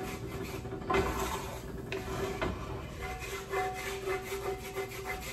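Wooden spoon scraping and stirring a flour-and-olive-oil roux in a cast iron skillet, rasping up the browned bits stuck to the pan bottom in irregular strokes. A steady low hum runs underneath.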